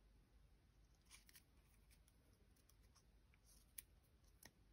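Near silence, with a few faint ticks and rustles of linen thread being wound around a small cardstock circle by hand; the sharpest tick comes near the end.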